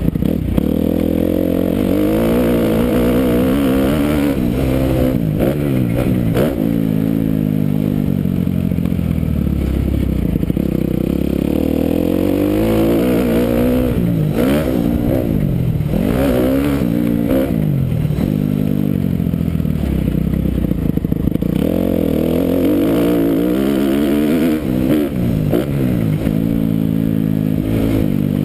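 Kawasaki KX250F four-stroke single-cylinder dirt bike engine revving up and falling back over and over as the bike accelerates, shifts and slows around a motocross track, with a few sharp knocks from the bike over the bumps.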